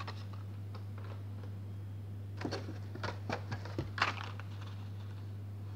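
Plastic blister-card packs of Hot Wheels cars clicking and crackling as they are pulled out of the shipping case: a cluster of short, sharp clicks in the middle, over a steady low hum.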